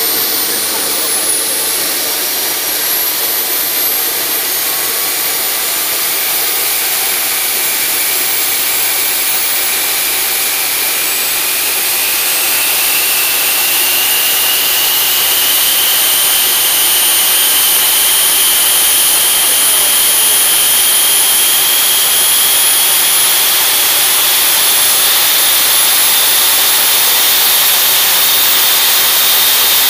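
Behotec J66 model turbojet engine running on a test bench during a calibration run: a loud, steady jet hiss with a high turbine whine. The whine climbs slowly in pitch and gets a little louder through the first half as the engine spools up, then holds steady.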